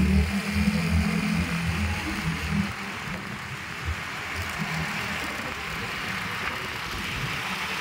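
A vehicle travelling along a road: steady engine, tyre and wind noise. A heavier low rumble in the first two to three seconds settles into an even hiss.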